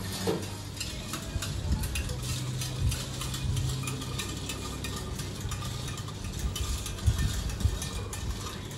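A utensil stirring and scraping in a small stainless steel cup, with many small metallic clicks and a few louder knocks near the end, over a steady low hum.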